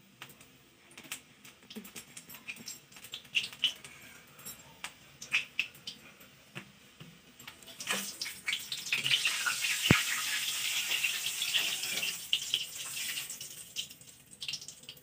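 Soft taps and clicks of hands pressing and shaping stuffed puri dough. Then, from about eight seconds in, a puri dropped into hot oil in an iron kadhai sizzles with a dense hiss that fades near the end, with one sharp knock partway through.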